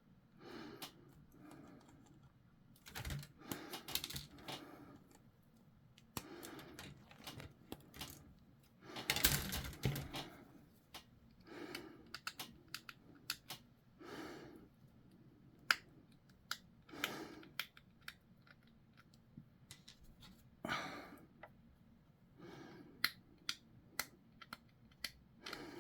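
Small model-kit parts being handled and fitted: irregular light clicks and taps with soft rustling and shuffling.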